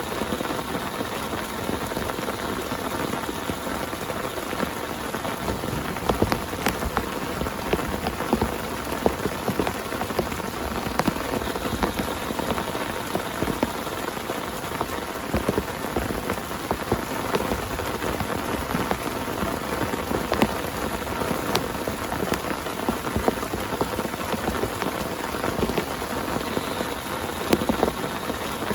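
Heavy rain falling steadily on a tent: a constant hiss with many single drops ticking sharply over it.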